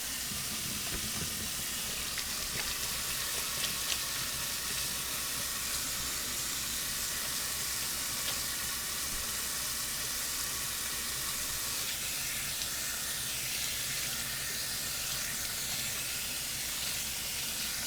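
Ground beef and sausage meat browning in a pot with garlic, sizzling with a steady hiss and a few faint pops.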